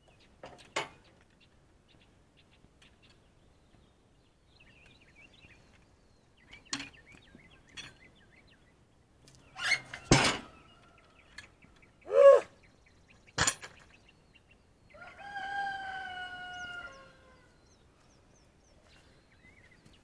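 Sharp knocks and thumps of a steel cant hook working a heavy log over on a sawmill bed, with a short pitched call a little past the middle that is the loudest sound. Near the end a rooster crows once, about two seconds long and falling slightly in pitch.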